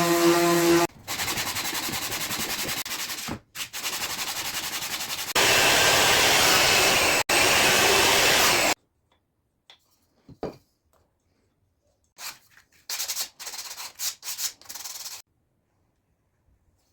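Sanding of iroko wood in three stretches that each stop abruptly, followed by a scatter of small knocks and clicks from handling.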